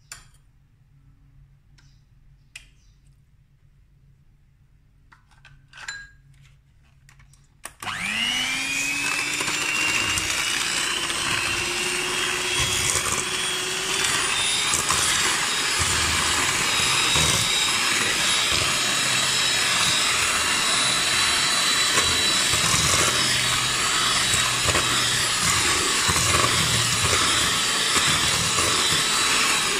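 Electric hand mixer switched on about a quarter of the way in, its motor whine rising quickly and settling into a steady run at medium speed as its beaters cream butter, sugar and egg in a stainless steel bowl. Before it starts there are only a few faint clicks.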